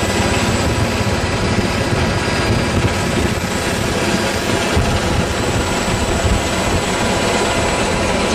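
Helicopter in flight heard from on board: loud, steady rotor and turbine noise with several constant whining tones running through it.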